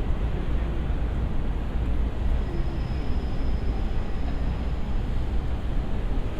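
Steady city ambience with a strong low rumble of traffic and a general urban din, no single event standing out. A faint high whine comes in for about a second and a half near the middle.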